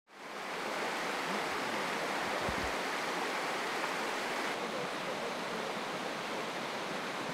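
Steady rushing of running water, like a stream in spate, with a brief low rumble about two and a half seconds in.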